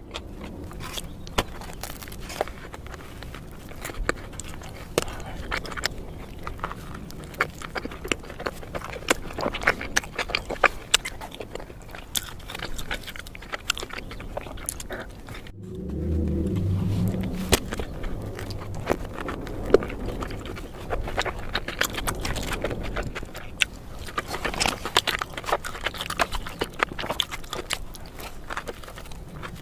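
Close-miked biting and chewing of a turkey ham, steak and cheese sandwich: wet mouth sounds with many sharp clicks and smacks. Midway there is a low hum lasting about two seconds.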